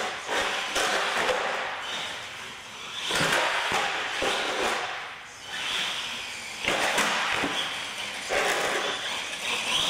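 Radio-control monster truck driving on a concrete floor, its motor and big tyres swelling and fading in about four bursts as the throttle is worked, with a couple of sharp knocks as it bumps along.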